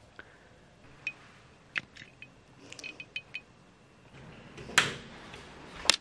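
Small items being handled: light clicks and small metallic clinks, with a quick run of ringing taps about three seconds in, then two louder knocks near the end.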